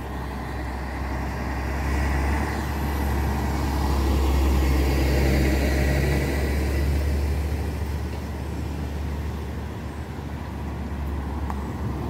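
Road traffic with a motor vehicle passing close: a low engine rumble and tyre noise that swell to their loudest midway and then fade.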